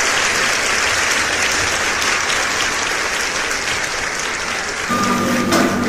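Applause, a dense steady clapping. About five seconds in, a low steady hum and a thin higher tone come in under it.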